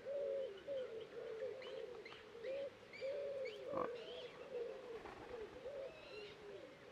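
Birds calling outside: a steady run of low, short cooing calls one after another, with higher chirps scattered over them. A single sharp click sounds about halfway through.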